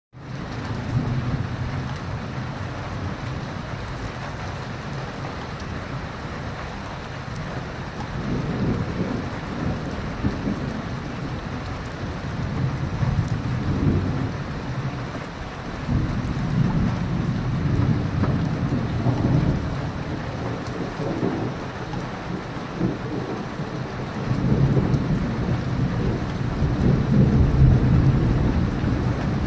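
Steady rain falling on a wet street during a thunderstorm, with rolling thunder rumbling low several times, swelling and fading, the loudest and longest rumble near the end.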